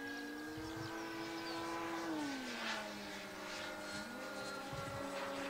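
Electric motors and propellers of Flex Innovations RV8 model planes flying in formation, a steady whine with several tones. The pitch drops about two seconds in as the throttle comes back and rises again about four seconds in.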